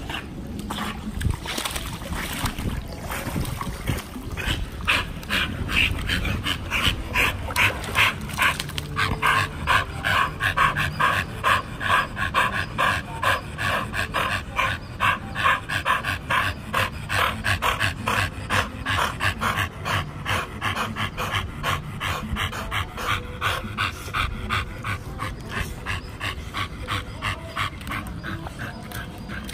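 A pit bull panting fast and steadily in quick, even breaths, winded from swimming and play. The panting gets stronger a few seconds in and eases a little near the end.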